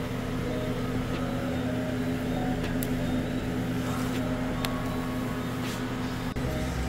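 Steady machine hum with a low drone, and a few faint clicks.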